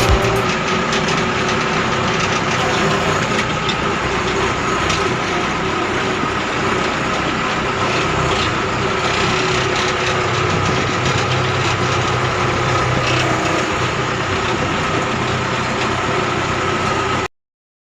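Rice combine harvester running steadily with a dense mechanical noise and a steady hum, cutting off suddenly near the end.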